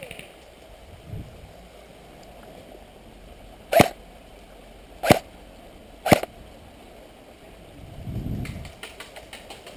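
Three single shots from an airsoft electric rifle, sharp cracks a little over a second apart. A brief low muffled rustle follows near the end.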